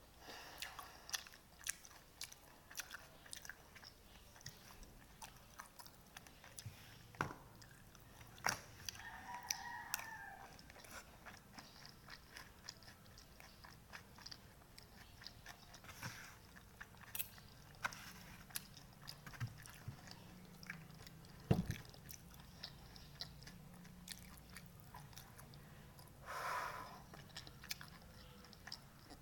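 Close-miked chewing and biting of pansit batil patong noodles, with many small scattered clicks and ticks.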